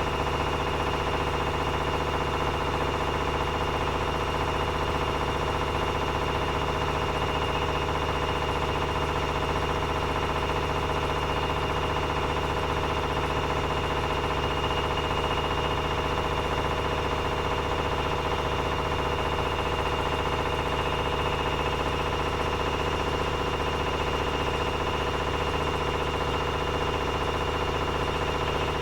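Privileg 9515 Sensation washing machine spinning at a steady 900 rpm with laundry inside: an even motor and drum whine with a knocking from inside the machine. The owner cannot place the knock; the drum has no play and the machine runs quietly when empty.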